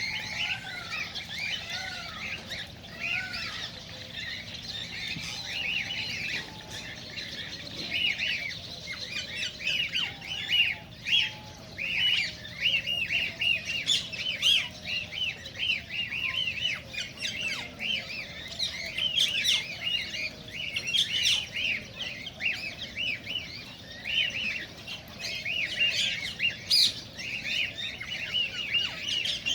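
Cockatiels chirping and chattering, many short calls overlapping one another, with a few short rising-and-falling whistled notes in the first few seconds.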